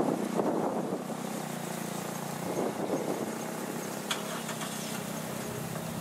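Gusty wind on the microphone, strongest in the first second, over a steady low engine hum.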